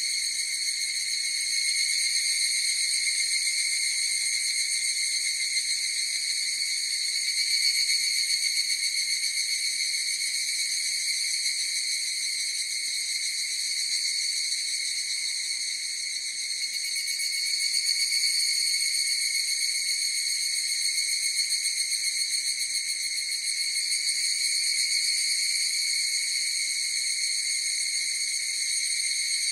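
Chorus of higurashi (evening cicadas, Tanna japonensis) calling without a break, a steady high ringing that swells and fades slightly.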